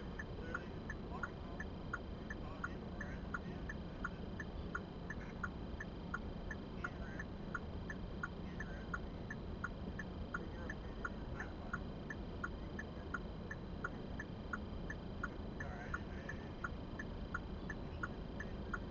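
A car's indicator flasher clicking at a steady, even rate, a little over two clicks a second, over a low steady hum inside the car.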